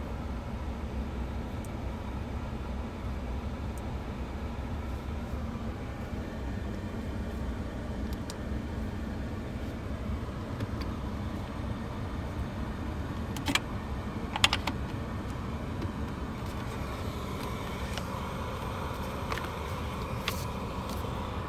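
A car running with a steady low rumble, with a few short clicks about two-thirds of the way through.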